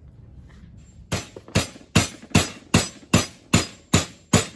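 Hammer blows on a steel pin punch, driving a roll pin into a differential carrier. Sharp metallic strikes at an even pace of about two and a half a second begin about a second in.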